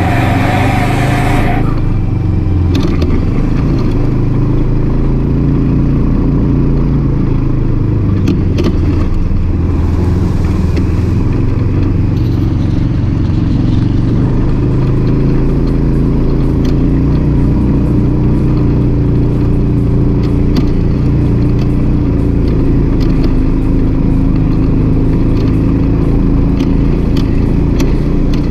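Side-by-side UTV engine running under way on a dirt trail, its pitch rising and falling with the throttle, following a short stretch of music that cuts off about a second and a half in.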